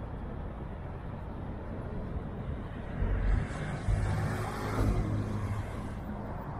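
A motor vehicle passes by over steady city background noise: its engine and tyre noise rise about three seconds in and fade again near the end.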